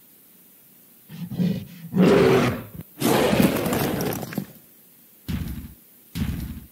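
Cartoon monster roar sound effects: short growls after about a second, then a long loud roar about three seconds in, followed by two heavy thuds near the end.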